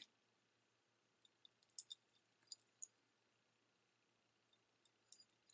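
Near silence with a few faint, short clicks and clinks of costume jewelry being handled, a cluster about two seconds in and a few more near the end.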